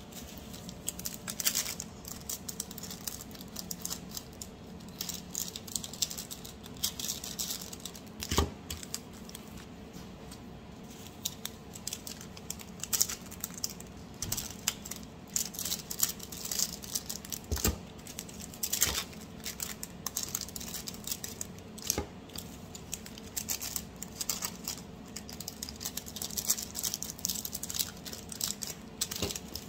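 Thin clear plastic bags crinkling and rustling as small bars are slipped into them one by one, with a few soft knocks on the counter.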